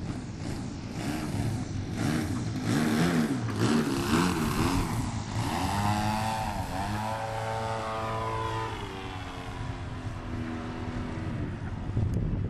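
Engine and propeller of a Yak 54 radio-controlled aerobatic model airplane running at power as it passes low and climbs away. Its pitch slides down steadily in the second half.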